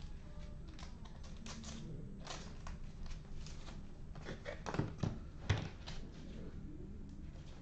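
Irregular light taps and clicks from something being handled, with two louder thumps about five seconds in.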